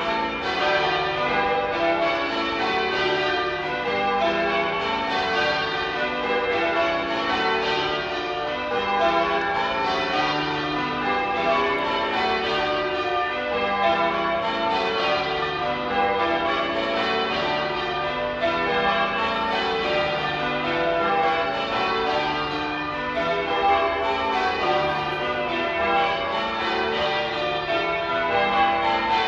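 A cathedral's ring of church bells in change ringing: a continuous, even stream of overlapping bell strokes at many different pitches, with no pauses.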